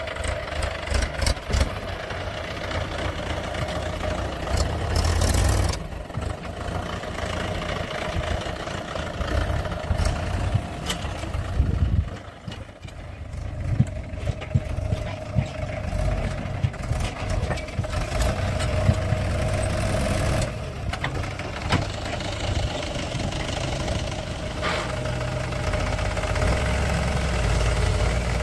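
Diesel engine of a JCB 3DX backhoe loader running steadily, easing off and picking up again a few times, with a steady drone and scattered sharp knocks and clatter from the machine working.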